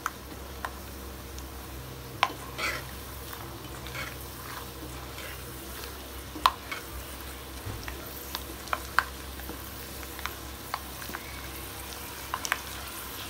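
Peanuts deep-frying in hot oil in a kadai with a steady sizzle, stirred with a perforated metal skimmer that gives occasional sharp taps against the pan.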